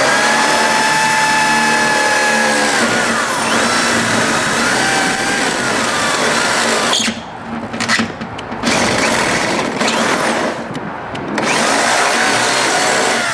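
Power drill boring screw holes for an exhaust-fan hinge kit, running in long spells with short stops between them, its pitch dipping as it bears down early on.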